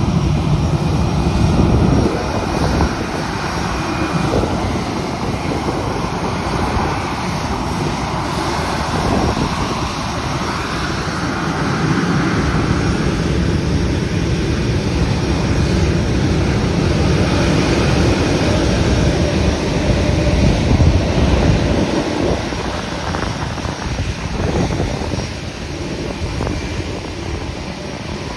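Jet airliner's engines at takeoff power during its departure, a loud, continuous noise that eases slightly near the end.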